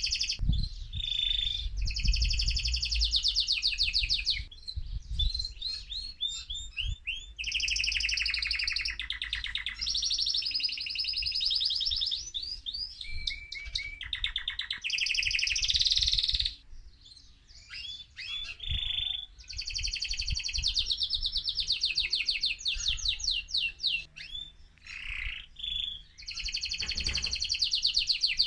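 Male mosaic canary in full, excited song: phrase after phrase of fast, high trills and rolling repeated notes, with short breaks and one longer pause just past the middle.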